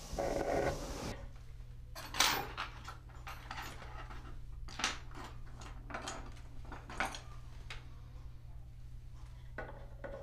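A steel file rasping in short strokes on a small hand-held steel type punch for about the first second. Then a handful of light clicks and clinks of small metal tools handled on a workbench, over a low steady hum.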